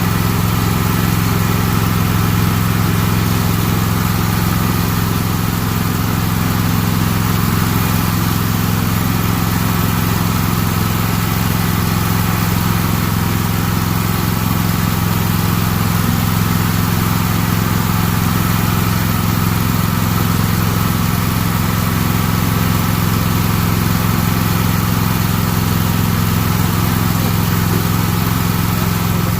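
Walker C19 mower's Kohler engine running steadily at a constant speed.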